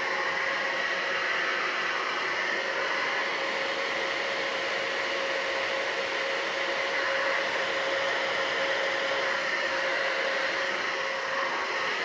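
UNIKARA ionic hair dryer with a diffuser attachment running steadily: a constant rush of air with a steady hum.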